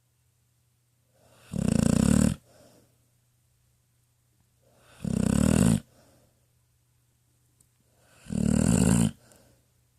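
A pitbull snoring in her sleep: three loud snores about three seconds apart, each under a second long, with a faint breath trailing after each.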